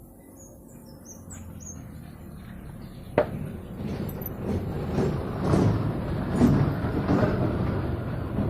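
A sharp click about three seconds in, then irregular scraping and clinking of metal parts being worked, growing louder.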